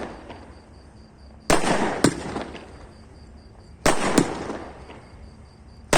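Aerial firework shells bursting in a pyrotechnic display: sharp loud bangs in pairs, about one and a half, four and six seconds in. Each is followed by a rumble of echo that dies away.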